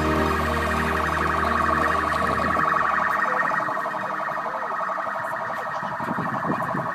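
Electronic siren warbling rapidly and steadily: a high, fast-pulsing tone.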